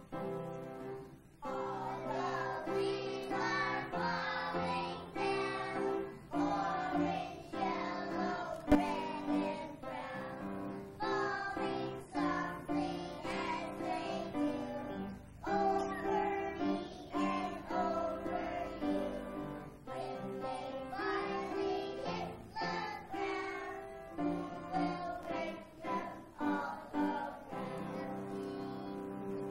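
Group of young children singing a song together, with instrumental accompaniment under the voices. One sharp knock about nine seconds in.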